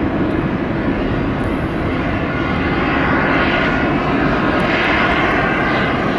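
Boeing 777-300ER's twin GE90 turbofan engines running as the airliner rolls on the ground: a steady, loud jet rumble with a hissing whine that swells about three seconds in and again near five seconds.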